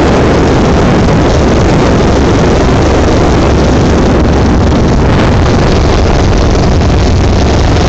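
Jet boat with an Oldsmobile 455 V8 running steadily at cruising speed, mixed with heavy wind noise buffeting the microphone. The result is a loud, unbroken rush.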